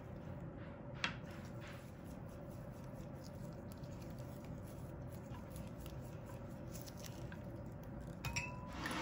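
Silicone spatula stirring melted chocolate in a glass measuring cup, with faint scraping and squishing. There is a sharp tap about a second in, and near the end a ringing glass clink.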